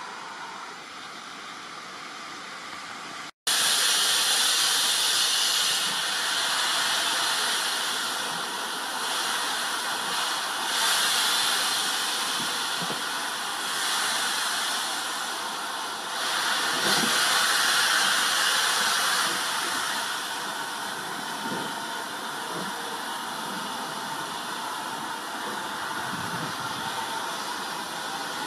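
Steam hissing steadily from GWR 2-6-2T prairie tank locomotive 4555, swelling and easing a little. It starts abruptly about three seconds in, after a quieter stretch of faint outdoor noise.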